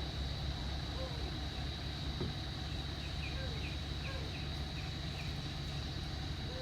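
Outdoor ambience: a steady high insect drone over a constant low rumble, with faint short chirps scattered through it.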